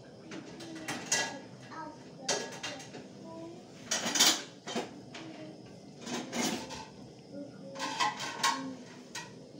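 A utensil clinking and scraping against a stainless steel pot of chicken stew, a dozen or so irregular metallic knocks, the loudest about four seconds in.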